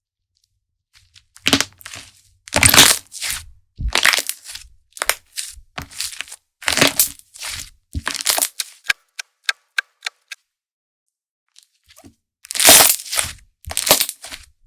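Slime being squeezed and poked by hand, crackling and popping in a string of short irregular squishes, with a run of small quick clicks about nine seconds in.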